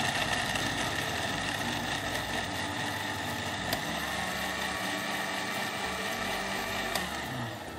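Panasonic countertop blender motor running steadily, churning ice and vanilla ice cream into an Oreo milkshake. It winds down and stops near the end.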